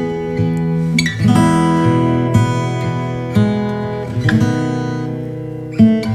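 Background music: an acoustic guitar strumming chords, a new chord about every second, each ringing out and fading.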